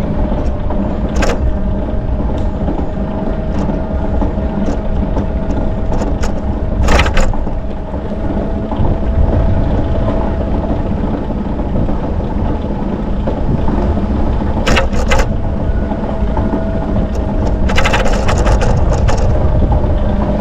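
Riding a bicycle: wind rumble on the microphone and tyre noise, with a steady hum running through it. A few sharp clatters come through, with a longer rattling cluster near the end.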